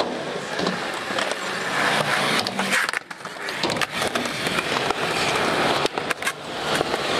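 Skateboard wheels rolling over concrete, with sharp clacks of the board. Near the end the board lands on a concrete ledge and grinds along it.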